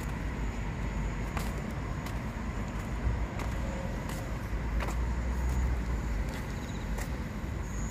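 Steady low rumble of road traffic, with a few sharp clicks scattered through it.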